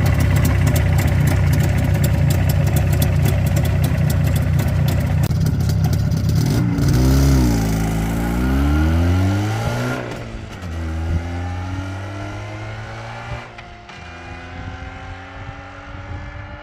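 Jawa 350 TS two-stroke twin engine running steadily, then revving up and down once. It then pulls away, its pitch rising in two sweeps with a gear change between them as it grows fainter.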